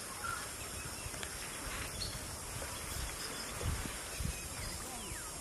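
Outdoor natural ambience: a steady drone of insects with a few short bird chirps, and a couple of low thuds about three and a half and four seconds in.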